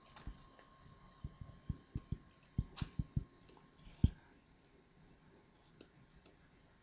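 Faint clicks and low knocks from working the computer while the slide is zoomed: a quick run of about ten in two seconds, then one sharper knock about four seconds in.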